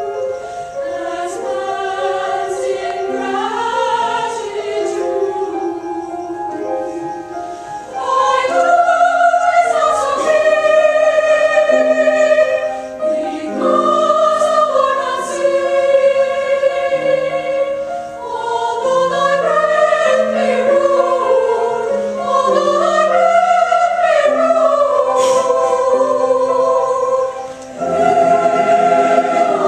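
A choir singing in several parts with sustained, slowly moving notes. It gets clearly louder about eight seconds in, dips briefly near the end, then comes back loud.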